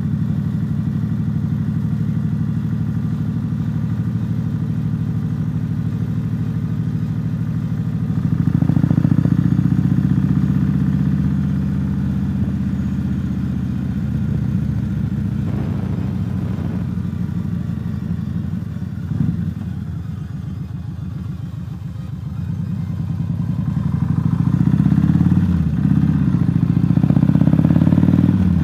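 Cruiser motorcycle engine running while riding, heard from the rider's helmet. It picks up about eight seconds in, eases off around twenty seconds, and climbs again near the end as the bike speeds up.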